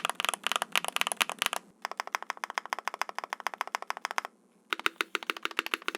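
Mechanical keyboard with Gateron Cream Soda linear switches being typed on fast, many keystrokes a second, in three runs separated by two short breaks.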